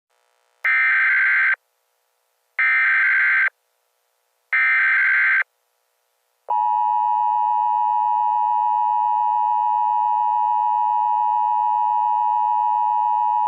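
Emergency Alert System message opening: three bursts of data tones about a second long each, about a second apart. Then, about halfway in, the steady two-tone attention signal begins and holds.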